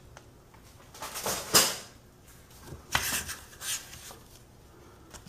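Plastic bags and paper crinkling as model-kit parts are handled and lifted out of a cardboard box, in a few short bursts.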